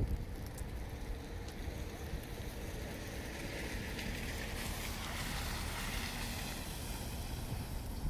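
A vehicle passing on a snowy, slushy street, its tyres hissing as it swells from about three seconds in and fades near the end, over a low wind rumble on the microphone.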